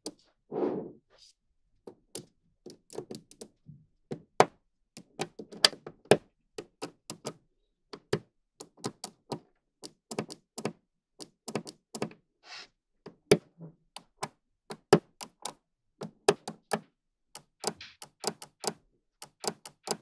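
Small magnetic balls clicking and snapping onto one another one at a time, in irregular sharp taps a few a second, with softer handling noises between.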